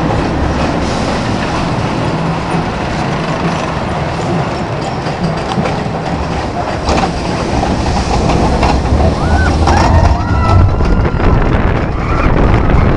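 Steel roller coaster train running on its track, recorded on board: a continuous rumble of wheels on rail that grows louder about eight seconds in as it speeds down a drop and wind rushes past, with brief screams from riders about ten seconds in.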